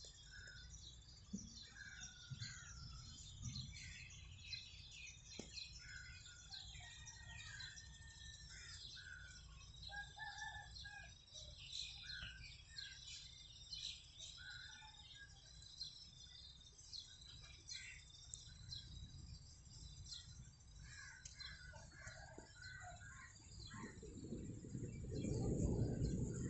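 Many birds chirping and calling in short, scattered notes over a faint low rumble. Near the end a louder low rumble swells for a couple of seconds.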